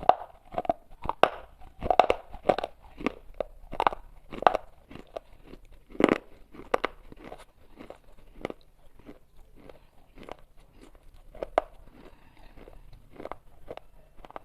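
Pieces of baked clay pot being bitten and chewed: a run of sharp, brittle crunches, loud and about two a second at first, then softer and closer together.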